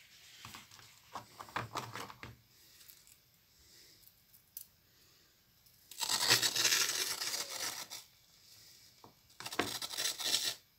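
A latex balloon filled with white powder, snipped open with scissors and squeezed: the air and powder rush out with a loud hiss for about two seconds, then a shorter burst near the end. Before that, rustling and small clicks come from handling the balloon and scissors.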